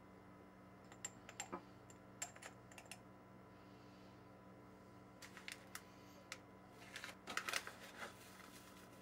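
Light clicks and taps of a small metal measuring spoon against a glass spice jar as spice is scooped out, in scattered groups, with a denser cluster of clicking and rustling about seven seconds in as a spice packet is handled.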